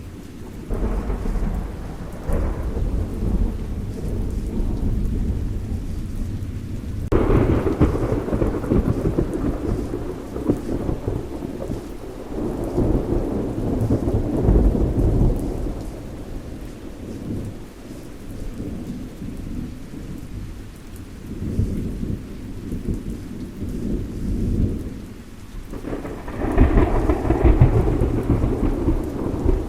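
Thunderstorm: steady rain with rolling thunder. A sudden peal about seven seconds in rumbles on for several seconds, and another loud peal comes near the end.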